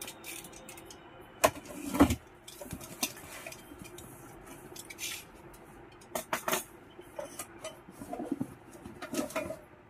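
A cardboard box being cut open and unpacked: cardboard scraping and rustling, broken by sharp knocks and clinks, the loudest two about one and a half and two seconds in, with more near the middle and end as the welding cable and its metal electrode holder are lifted out.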